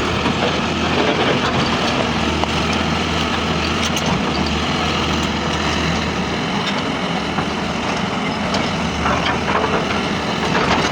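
Heavy diesel engines of earthmoving machinery running steadily, with a few light knocks.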